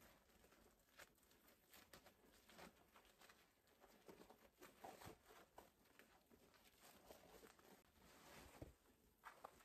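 Near silence, with faint, scattered rustling and soft taps of stiff aso-oke headwrap fabric being twisted and arranged by hand.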